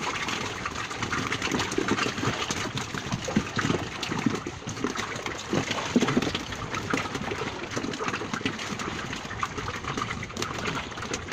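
Fish being emptied from a woven bamboo fish trap into the bottom of a boat: a continuous jumble of irregular taps and slaps as the fish drop and flap, with the trap's slats rattling and seawater splashing and dripping.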